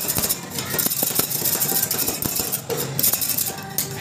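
Two metal spatulas chopping and scraping ice cream mix on a frozen steel cold plate while rolled ice cream is being made: quick, irregular clacks and scrapes of metal on metal.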